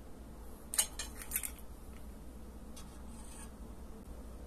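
A few light clicks and clinks of metal and glass as a small metal-framed glass tealight lantern is handled, in a quick cluster about a second in and fainter ones later, over a low steady hum.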